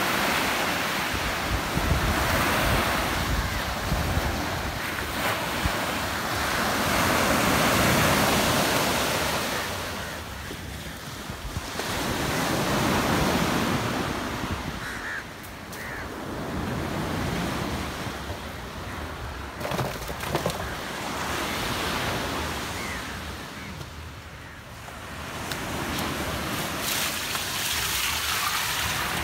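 Sea waves breaking and washing up on a beach, the surf swelling and fading every few seconds.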